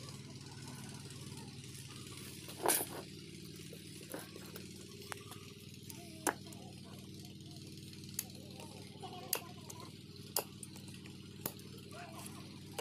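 A steady low hum with scattered sharp clicks and knocks, the loudest about three seconds in.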